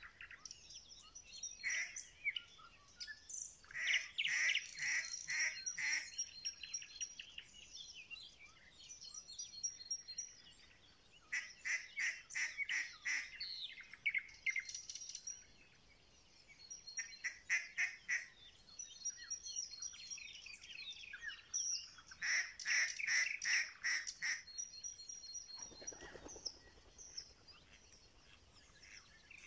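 Mallard duck call blown in series of rapid quacks, imitating a hen mallard to draw in drakes: a run of about six to eight quacks at roughly four a second, repeated four times several seconds apart. High chirps and trills of small songbirds go on throughout.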